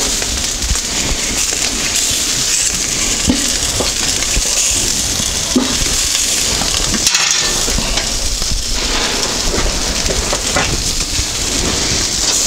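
Pork shashlik sizzling over a charcoal grill, a steady hiss, with a few light clicks as metal tongs pull pieces off a skewer into a clay pot.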